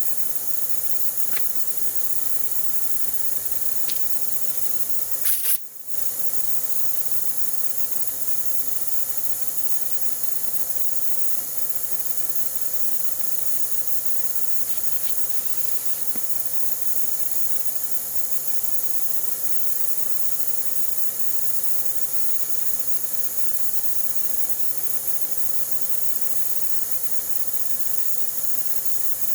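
A steady hiss with a few faint clicks, broken once by a short sharp sound and a brief drop about five seconds in.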